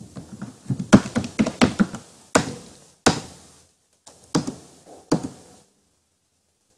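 A run of about ten sharp clicks and taps from a computer mouse and keyboard on a desk, each with a short ring-out. They stop a little after five seconds in.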